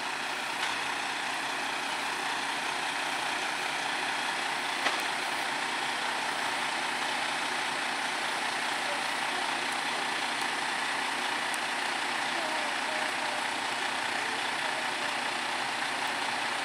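Delivery truck's engine running steadily while it powers the knuckle-boom crane, with one short click about five seconds in.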